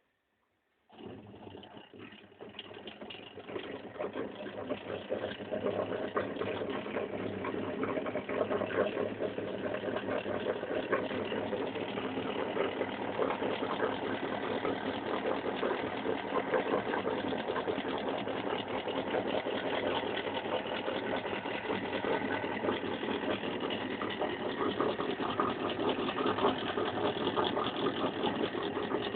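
Homemade four-coil magnet motor-generator starting up about a second in and gathering speed over several seconds, then running steadily at speed with a fast, rough buzz.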